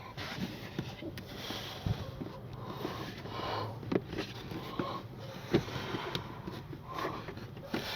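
Scattered light knocks, clicks and rubbing from plastic interior trim panels being handled and pushed into place.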